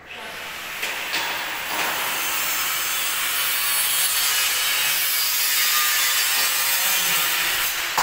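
Angle grinder cutting the galvanised steel cable tray: a loud, steady grinding hiss that starts suddenly.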